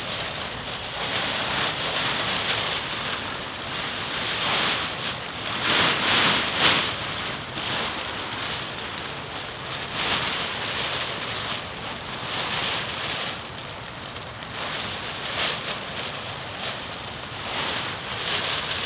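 Hammock quilt and tarp fabric rustling as it is handled and pulled about, an uneven swishing that swells and fades every second or so.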